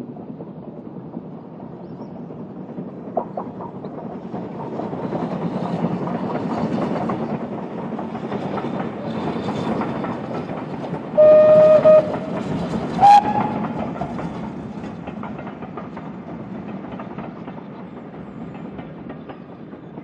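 Steam locomotive and train passing, the running noise building then fading, with the whistle sounded: a blast of about a second, then a short second blast a second later.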